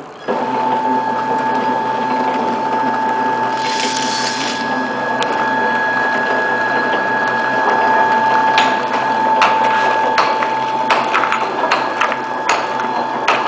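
Horizontal flow-pack (pillow-pack) packing machine running, with a steady whine and mechanical clatter. A short hiss comes about four seconds in, and sharp clicks come through the second half.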